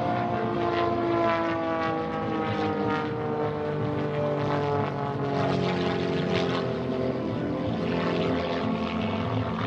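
Pitts S-1S aerobatic biplane's piston engine and propeller droning steadily. The pitch sinks slowly over the first half, then holds level.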